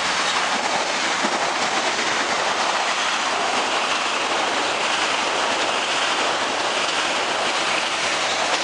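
Metro-North electric commuter train passing close by at speed: a loud, steady rush of steel wheels running on the rails.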